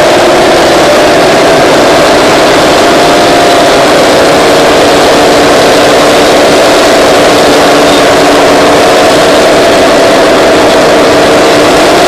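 Twin Detroit Diesel 6-71N two-stroke engines of a Terex 82-80 bulldozer running loud and steady, with only slight wavers in pitch.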